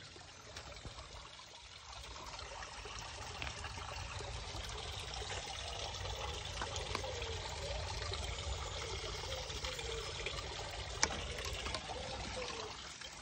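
Water trickling steadily, building up over the first few seconds and then holding even, with a single click about eleven seconds in.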